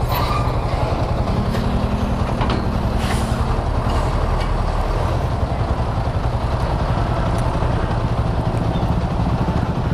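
Yamaha RX-King two-stroke motorcycle engine running steadily and loudly, with a fast pulsing beat.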